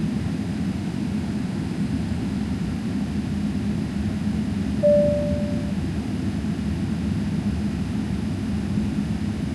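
Steady low drone inside a Boeing 777-300ER cabin in flight, with a single chime tone about five seconds in that fades away within a second.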